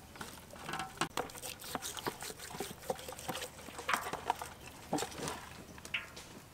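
Irregular wet slaps, taps and clicks of hands moving and rubbing whole scaled fish on a stainless steel tray.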